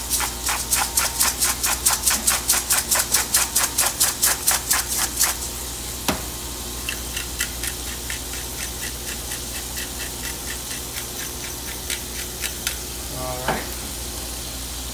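Salt grinder twisted by hand, clicking in a quick even rhythm of about five turns a second for some five seconds, then a pepper grinder turned more softly at about four clicks a second for almost six seconds. A single click comes between the two runs.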